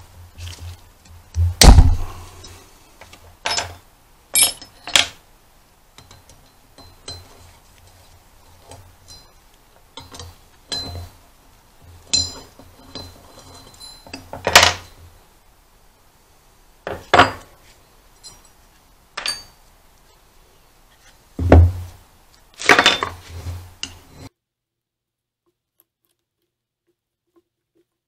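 Irregular knocks and clinks of metal parts (a wheel hub assembly, small bolts and a screwdriver) being handled and set down on a wooden workbench, a few of them heavy thuds. The sound cuts out to silence about 24 seconds in.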